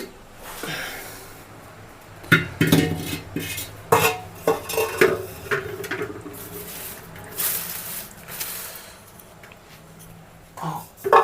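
Metal pots and kitchen utensils clanking and clattering in a run of sharp knocks that ring briefly, with a short rushing noise about two-thirds of the way through.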